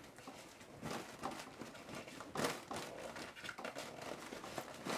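Thin washi paper rustling and crinkling faintly as hands press it into a bowl and smooth it against the inside, with a few short louder rustles, the clearest about halfway through.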